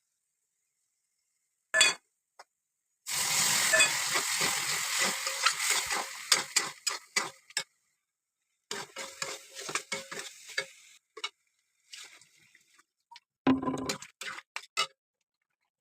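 Food sizzling in a hot pan while chole is cooked, starting suddenly about three seconds in and fading over a few seconds. A spoon then stirs and clinks against the pan in short bursts separated by silent gaps.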